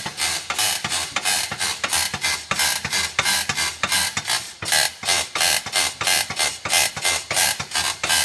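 Polaris Ranger's rear right suspension squeaking loudly as the back corner is rocked up and down by hand, a rhythmic squeak at about three a second. The owner traces it to the back right shock area.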